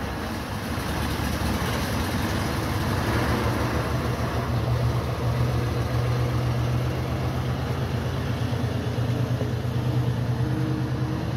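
Diesel engine of a Mitsubishi Fuso truck laden with oil palm fruit bunches, running steadily under load as it pulls away, with a low, even engine note that holds at much the same level throughout.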